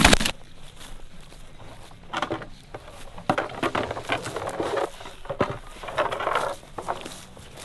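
Irregular crunching and rustling of footsteps through dry wheat stubble, with the scrape and knock of plastic full-body goose decoys being carried and set down. A brief loud burst at the very start cuts off suddenly.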